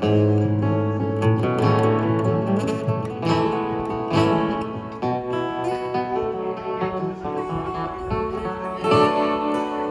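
Acoustic guitar playing an instrumental passage of plucked and strummed notes.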